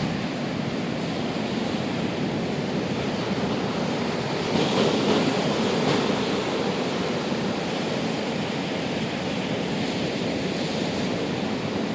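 Surf crashing in steadily with strong wind, one wave breaking louder about four and a half seconds in.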